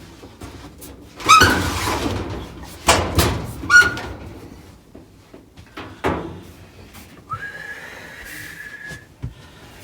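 Sheet-metal dryer drum squealing and scraping as it is worked into the dryer cabinet: several short squeals that slide upward with a rattle, then one longer steady squeal near the end.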